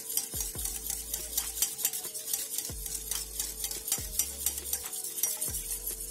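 Wire whisk beating powdered sugar into chilled water in a stainless steel bowl: rapid swishing of the water with quick clinks of the wires against the steel, as the sugar dissolves.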